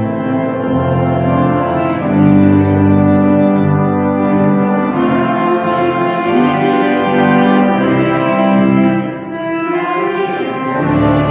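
Pipe organ playing a hymn in sustained, changing chords: the opening of the closing hymn. The music eases briefly about nine seconds in.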